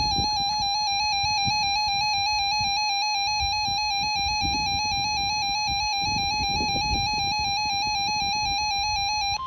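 Weather radio alert tone: a loud electronic warble rapidly alternating between two close pitches, unbroken for about nine seconds. At the very end it switches to a steady single-pitch tone.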